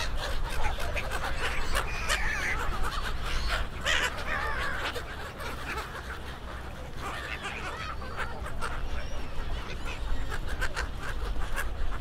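A large flock of gulls calling, many harsh overlapping calls at once, over a steady low rumble.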